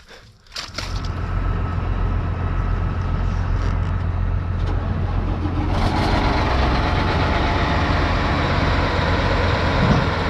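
Tractor diesel engine running with a steady low drone that comes in under a second in; about six seconds in it gets fuller as the engine is revved.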